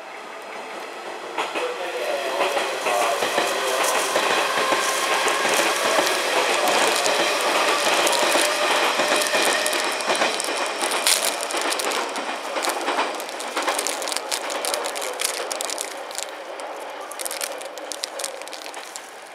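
Kintetsu electric trains running on the tracks: rolling noise swells after a couple of seconds and stays loud, then wheels click sharply over rail joints and points before the sound eases near the end.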